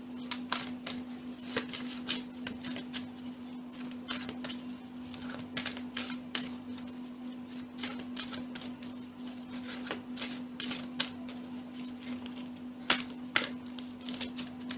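A deck of tarot cards being shuffled by hand, the cards clicking and slapping together in quick, irregular taps, over a steady low hum.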